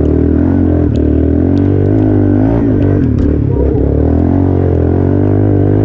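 Yamaha Raptor 350 ATV's single-cylinder four-stroke engine running steadily, its speed rising and falling slightly, on a freshly cleaned carburetor rejetted with a 150 main jet.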